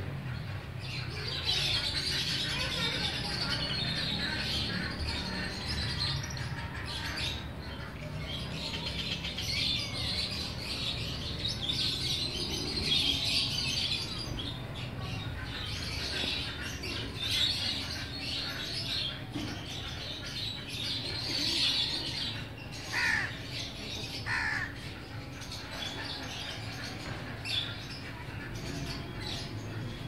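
Busy birdsong chorus of many small birds chirping and chattering over each other, with crows calling; about two-thirds of the way through come two louder calls that slide down in pitch. A steady low hum runs underneath.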